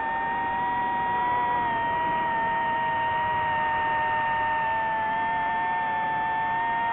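DJI FPV drone's propellers and motors whining steadily in flight, several close pitches held nearly level with only a slight waver.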